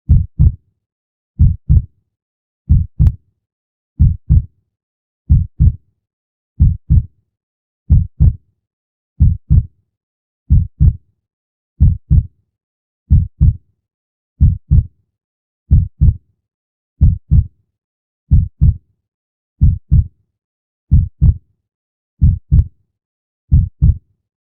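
Heartbeat sound effect: a slow, steady lub-dub. Each beat is a pair of short, low thumps, repeating about every one and a half seconds with silence in between.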